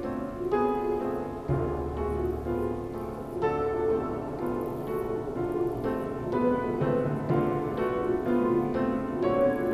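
Piano music: a continuous run of notes.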